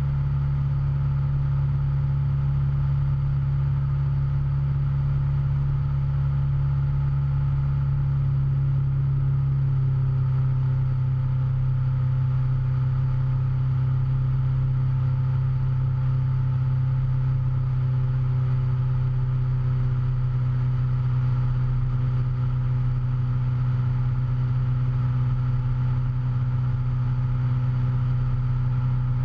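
Cessna 172's piston engine and propeller droning steadily in flight, picked up by a camera mounted outside on the airframe. The engine note settles slightly lower about ten seconds in.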